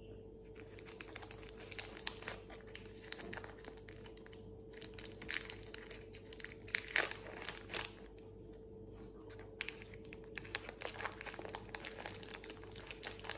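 Cadbury Old Gold Original chocolate bar's wrapper crinkling and crackling in the hands as it is peeled open, in irregular clusters of crackles with short pauses between. A faint steady hum runs underneath.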